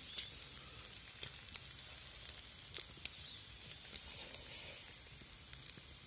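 Meat sizzling as it fries, a steady high hiss broken by scattered sharp pops and crackles of spitting fat.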